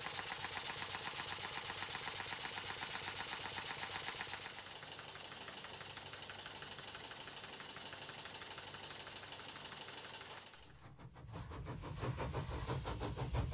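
Stuart Models model beam engine running fast, its exhaust giving an even rapid beat with strong hiss and a slight knock, which the builder puts down to play in the pins through the beam and badly fitted Watts parallel motion. Near the end the engine sound stops and a low steady tone takes over.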